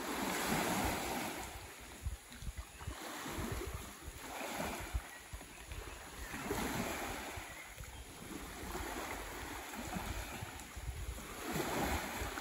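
Small waves washing onto a gravel shore, each wash swelling and fading about every two seconds, with wind rumbling on the microphone.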